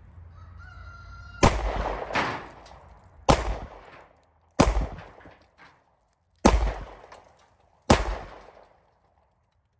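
Six shots from a Heizer Defense PKO-45 .45 ACP pocket pistol, emptying its five-round magazine plus the chambered round. The shots are unevenly spaced, about one to two seconds apart, and each rings out and fades. The last shot leaves the slide locked open.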